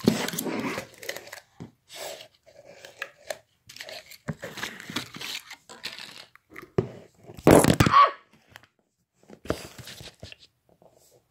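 Slime being handled by hand: irregular crackling, tearing and squishing sounds, loudest about two-thirds of the way in.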